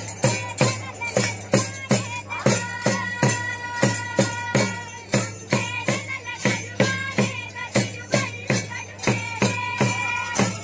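Group folk percussion: small two-headed hand drums and woven winnowing trays beaten together in a steady rhythm, about three strikes a second, with voices holding long sung notes over the beat in phrases.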